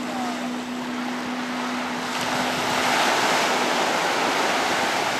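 Sea-Doo personal watercraft running with a steady engine hum that fades out about halfway through. A broad rush of spray and surf swells up as it turns, with wind on the microphone.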